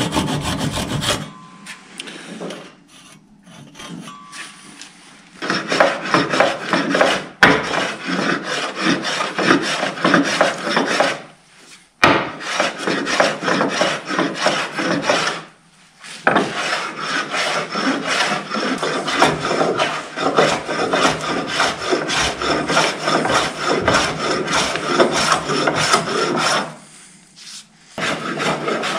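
A hand tool shaping wood with quick, repeated strokes. It comes in three long runs separated by brief pauses, after a quieter spell that lasts until about five seconds in.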